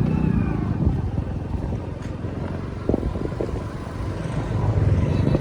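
Motor vehicle engines running on the road, a steady low rumble that swells near the start and again near the end.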